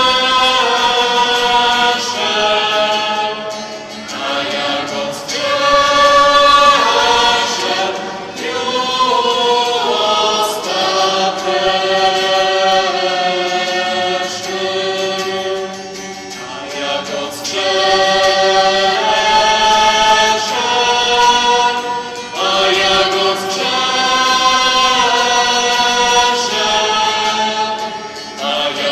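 Many voices singing a slow sacred hymn together in chorus, in phrases a few seconds long with short breaks between them.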